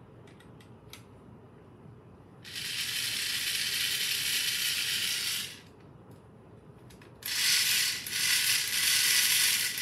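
Small motor and gears of a robotic toy fish running in two bursts of about three seconds each, with a few light clicks before the first.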